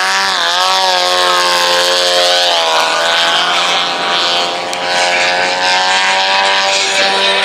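Engine and propeller of a model aerobatic airplane, its pitch rising at the start as it powers up and away from a low hover, shifting about two and a half seconds in, then holding a steady drone as it climbs out.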